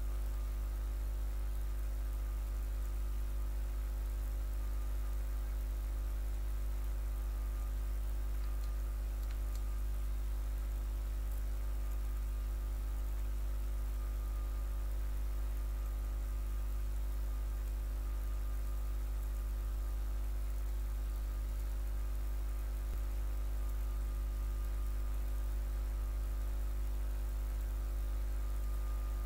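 Steady electrical mains hum and buzz picked up by the recording, a low drone with a stack of unchanging overtones and a faint hiss, holding level throughout.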